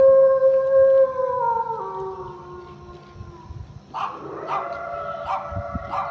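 A dog howling: one long howl held and then falling away in steps, and a second howl starting about four seconds in.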